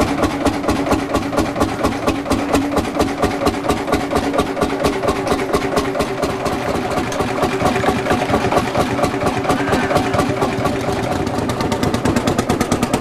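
Vintage tractor engine running at a steady idle, its exhaust beating in an even rhythm of distinct pulses.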